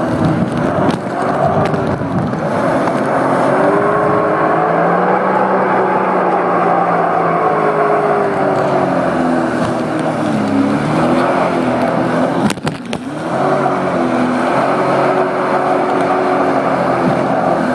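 Sea-Doo personal watercraft's engine and jet pump running under way, the pitch rising and falling as the throttle and speed change. About twelve and a half seconds in the sound drops out briefly with a couple of knocks before it picks up again.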